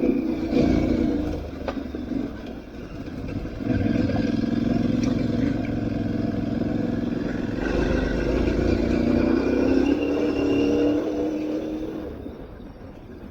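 Aprilia Tuareg 660's parallel-twin engine running under throttle on an off-road ride, holding a steady note. It eases off briefly about two seconds in, pulls again, then backs off near the end.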